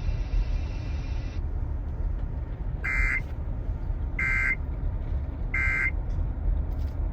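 NOAA Weather Radio sending its end-of-message code: three short identical bursts of digital data warble, about a second and a quarter apart, over a steady low rumble of radio noise. A hiss in the broadcast cuts off about a second in.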